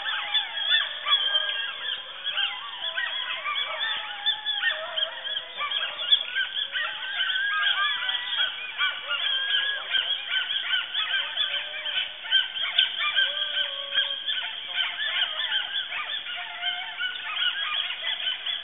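A pack of wild dogs (dingoes) calling together: many overlapping, wavering calls that slide up and down in pitch, keeping on without a break.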